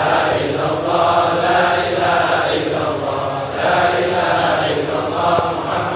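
A congregation of many men chanting an Arabic devotional qasida together, their voices blended into one steady sung chant.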